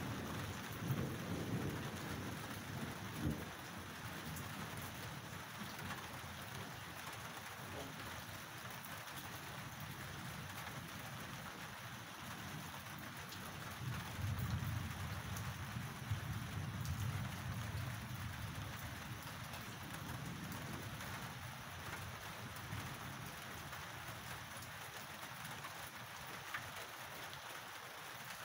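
Steady rain, with low rolling thunder: a rumble in the first few seconds and a longer one that starts about halfway through and lasts several seconds.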